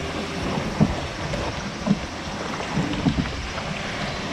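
River water rushing around an open canoe in a fast current, with wind noise on the microphone and a few brief knocks about a second apart.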